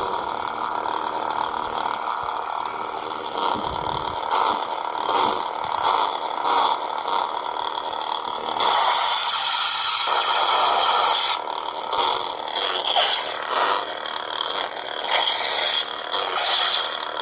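Lightsaber sound board playing its crimson sound font through the stock speaker: a continuous buzzing hum that swells and shifts as the saber moves, louder and brighter for a couple of seconds about nine seconds in. It has a little crackle, which the owner suspects comes from a damaged stock speaker.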